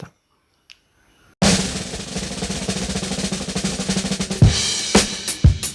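Music: after a brief silence, a fast snare-style drum roll builds, then breaks into separate heavy drum hits near the end.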